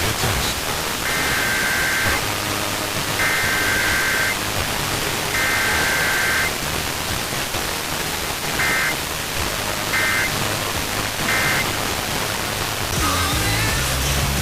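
Emergency Alert System SAME data bursts, a buzzy two-tone warble, over heavy radio hiss. Three header bursts of about a second each come in the first half, then three short end-of-message bursts.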